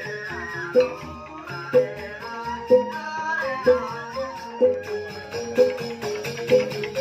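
Music: a melody over a steady beat about once a second, with small high ticks.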